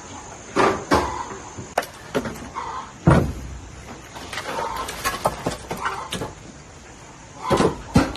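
A handful of irregular sharp knocks and thuds, spaced unevenly, the loudest about three seconds in and another pair near the end.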